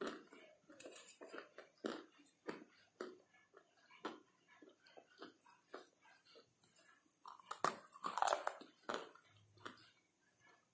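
Pieces of hard grey slate being bitten off and chewed, a fast, uneven run of sharp crunches that gets loudest about eight seconds in.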